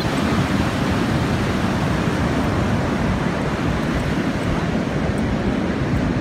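Ocean surf washing up the beach, with wind buffeting the microphone: a steady, low rushing noise.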